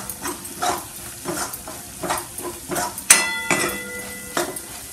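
Steel spoon stirring and scraping thick onion-tomato masala as it fries in oil in a kadhai, a quick run of scrapes over a light sizzle. About three seconds in the spoon knocks sharply against the pan, which rings briefly.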